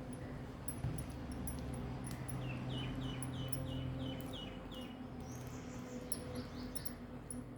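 A small bird chirping in quick runs of short, falling notes, two runs a few seconds apart, over a steady low hum.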